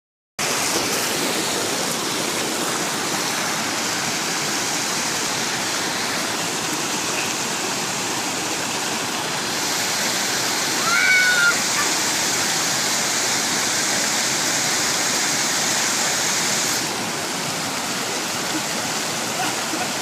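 Small waterfall pouring steadily over rocks into a shallow stream, with a brief high call about halfway through.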